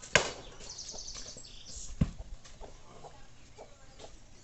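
Axe blows splitting firewood: a sharp crack just after the start and a heavier thud about two seconds in. A bird chirps quickly in between.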